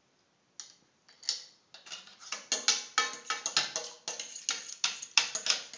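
A utensil clinking against a stainless steel frying pan while egg and milk are beaten in it: quick, uneven ticks, a few at first and then several a second from about two seconds in.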